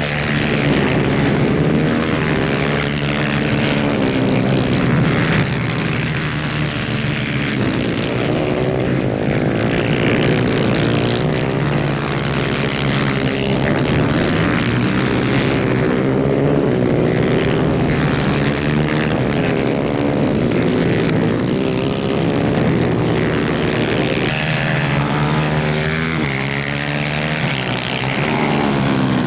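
Several 250cc superkart engines racing, their notes overlapping and repeatedly rising as they accelerate and falling as they brake or pass.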